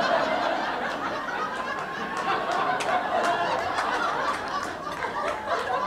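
Comedy club audience laughing at a punchline: a sustained wave of crowd laughter that eases slightly toward the end.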